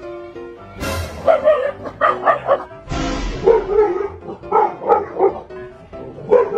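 A dog barking in a rapid run of sharp barks starting about a second in, a startled alarm reaction, over background music.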